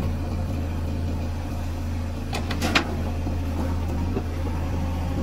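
Diesel engine of a JCB 3DX backhoe loader running steadily as it loads soil into a tractor trolley, with a brief clatter about halfway through.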